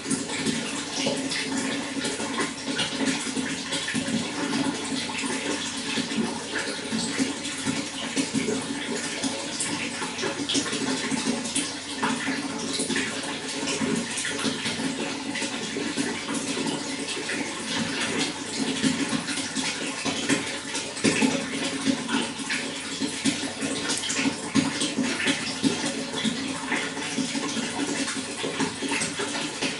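Running water flowing steadily: a constant rush made of many small, quick splashes, with no pause or change.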